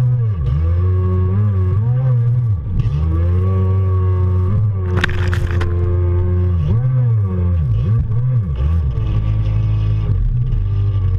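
Stand-up jet ski engine revving up and down as the ski carves across the water, with a brief burst of splashing spray about five seconds in. Near the end the engine settles to a lower, steadier note.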